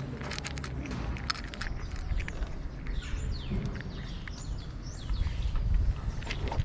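Cats crunching dry kibble from bowls close by: quick, irregular crisp crunches. Birds chirp in the background, and a low rumble gets louder about five seconds in.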